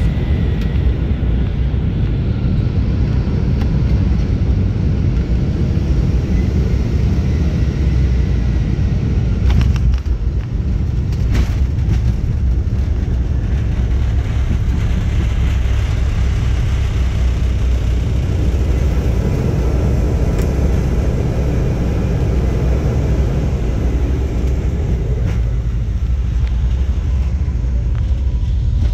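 Jet airliner heard from inside the cabin: a loud, steady rumble of engines and airflow, with a couple of sharp clicks around ten and twelve seconds in.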